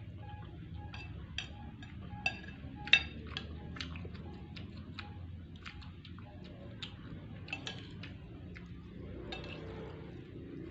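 A spoon clinking and tapping against a dish while eating, many short clinks at an uneven pace, some with a brief ring, the loudest about three seconds in.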